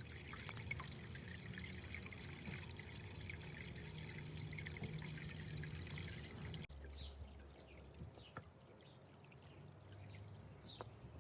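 Water from a small pond fountain splashing and trickling steadily into the tub. It cuts off suddenly about two-thirds of the way through, leaving a quieter background with a few faint short chirps.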